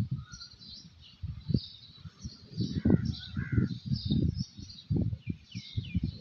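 Small birds chirping again and again, with a pair of lower calls about three seconds in, over gusty wind buffeting the microphone in irregular low rumbles.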